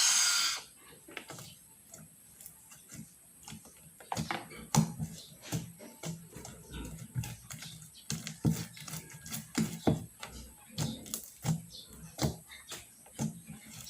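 Homemade slime being squished and worked by hand, making irregular sticky clicks and pops, with a louder burst right at the start.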